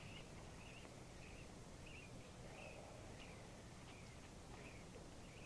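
Near silence: a steady low hum and hiss, with faint short high chirps repeating a little over twice a second.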